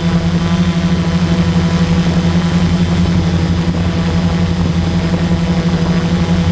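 Quadcopter drone hovering, its propellers giving a loud, steady hum at one unchanging pitch.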